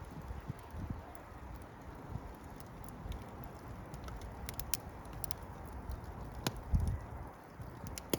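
Wood fire crackling, with scattered sharp pops over a low steady rumble and a soft low thump near the end.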